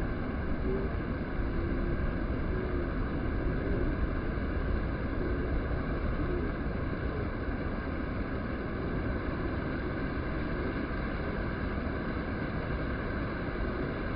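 Steady low rumbling noise, with a few faint short tones in the first few seconds.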